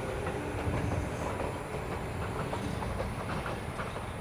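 Tobu Isesaki Line electric train running along the track. A steady rumble carries a short humming tone near the start and a run of quick clicks from the wheels over the rails in the second half.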